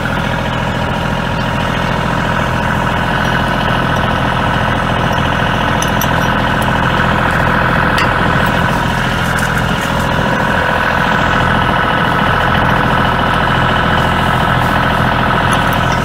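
Kioti compact tractor's diesel engine running steadily at idle.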